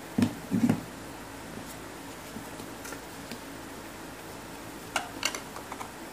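Hands handling a small cardboard puzzle-cube box: two dull knocks in the first second, then a few light clicks and taps of the cardboard near the end, over a steady low hum.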